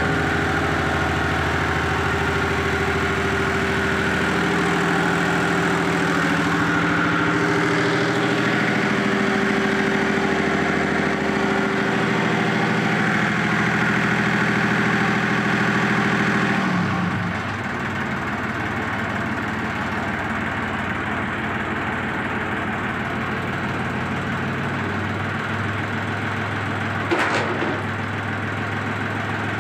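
Si Yang 380J-3 four-stroke marine diesel engine of an enclosed lifeboat running just after starting during its weekly test run. Its speed shifts for the first half, then about halfway through it drops in pitch and loudness and settles into a steady idle. A single sharp knock sounds near the end.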